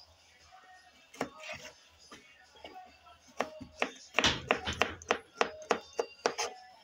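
Chef's knife dicing sausage on a wooden cutting board: quiet at first, then from about three and a half seconds in a quick run of sharp knife strokes on the board, several a second.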